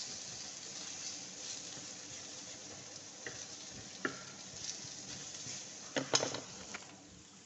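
Grilling vegetables sizzling with a steady hiss that slowly fades, the heat having just been turned down. A few light knocks, the loudest pair about six seconds in.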